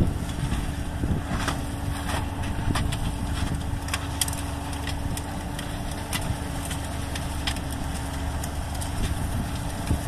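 Combine harvester running as it cuts standing wheat: a steady engine drone with a constant hum through it, and scattered light ticks.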